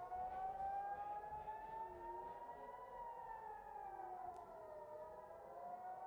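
Air raid siren wailing, its pitch rising slowly to a peak about three seconds in, falling for about two seconds, then starting to rise again near the end.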